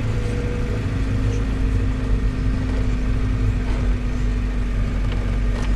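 Interior of a moving minibus taxi: the engine runs with a steady hum over a constant low road rumble.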